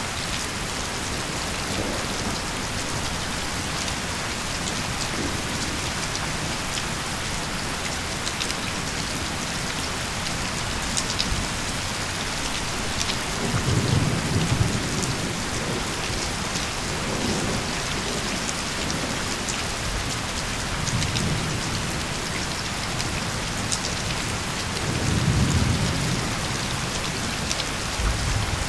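Steady heavy rain hissing, with scattered drops ticking. Low rolls of thunder rumble several times in the second half, the loudest about halfway through and again near the end.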